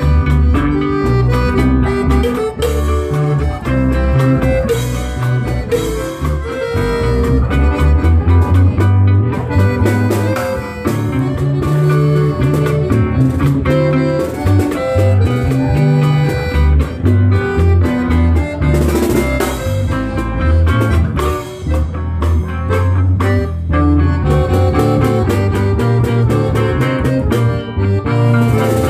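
Live norteño music: a Hohner piano accordion plays the melody over a strummed twelve-string bajo sexto and an electric bass keeping a steady rhythm.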